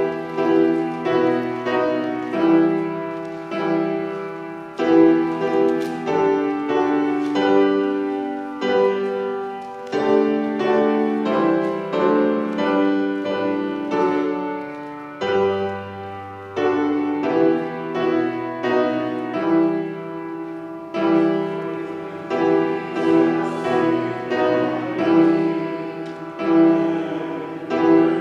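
A piano playing a slow piece in sustained chords, a new chord struck every second or two.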